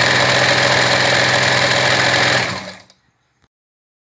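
BMW G 310 GS's single-cylinder engine idling with a steady mechanical clatter, the 'sewing machine' noise the riders find annoying when the bike stands still. The sound fades out about two and a half seconds in.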